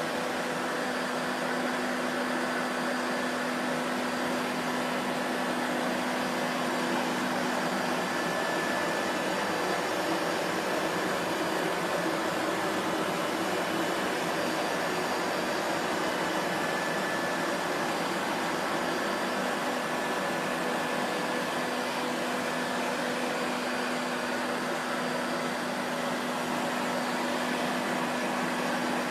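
Vacuum cleaner running steadily: a continuous whoosh of rushing air with a low motor hum and a faint higher whine, with no change in speed.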